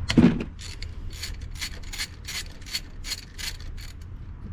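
Ratchet wrench clicking in a quick, even run of about four clicks a second as it turns a spark plug in the engine.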